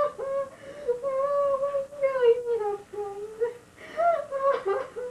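A high voice singing a slow, wordless melody in long held notes that waver and slide in pitch.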